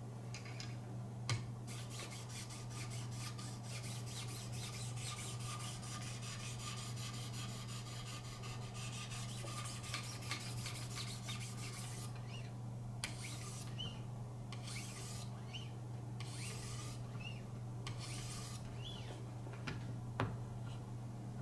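Wicked Edge guided sharpener's 1,500-grit stones rasping along a knife edge. A long run of quick back-and-forth strokes is followed by slower, separate strokes in the second half. A sharp tap comes about a second in and another near the end.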